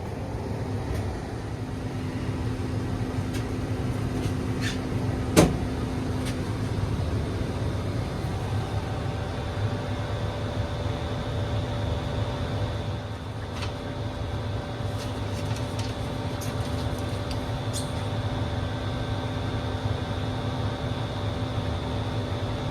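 Ruud propane gas furnace running while firing, a steady mechanical hum with a few faint steady tones. A single sharp click comes about five seconds in.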